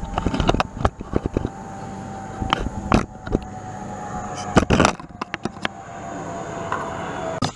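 Loose soil being tamped down: irregular thuds and knocks, several a second at first, then in scattered clusters.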